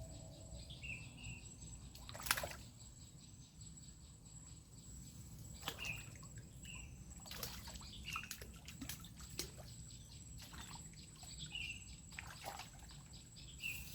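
Faint riverside ambience: short bird chirps every few seconds over a steady high insect whine, with scattered sharp clicks and knocks, the loudest a little over two seconds in.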